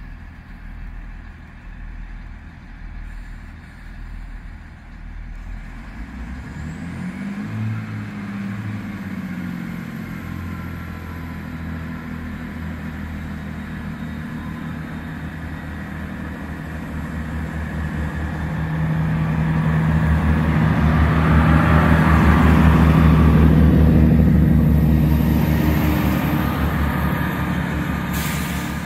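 Class 165/166 Turbo diesel multiple unit running, its diesel engine note rising briefly about seven seconds in as it powers up. The engine sound then grows steadily louder, peaks past the middle as the train runs by close, and eases off near the end.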